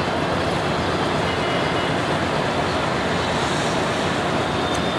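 Steady drone of a diesel locomotive's engine as it runs slowly over yard tracks, blended with a constant wash of traffic noise.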